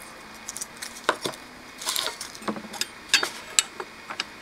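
Irregular light clicks and clinks of a 2.5-inch SSD being handled and fitted into a 3.5-inch adapter bracket.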